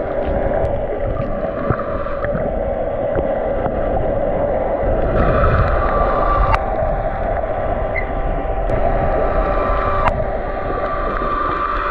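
Underwater sound picked up by a GoPro in its waterproof housing: a steady muffled rumble with a constant hum running through it, and a few sharp clicks.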